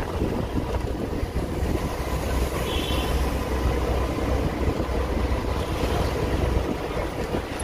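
Steady street traffic noise of motorcycles and scooters, with a heavy low rumble of wind on the microphone as the camera moves along the road. A brief high-pitched tone about three seconds in.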